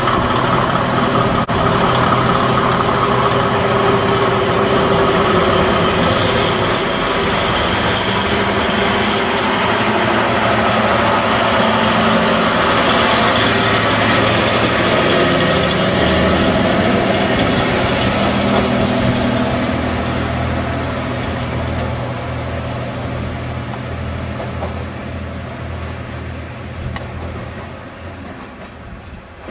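Diesel engines of JNR KiHa 58-series railcars running steadily, then fading over the last several seconds as the cars move away.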